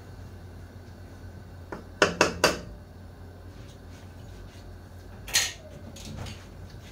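Cookware and utensils handled at the stove: three quick sharp clicks about two seconds in, then a longer clattering knock with a short ring near the end.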